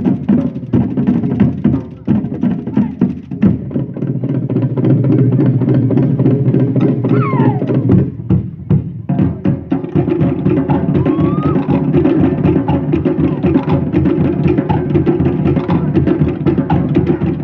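Cook Islands drum music for a dance: fast, dense beating on wooden slit drums over a deeper drum layer, with a short break about eight seconds in before the drumming picks up again.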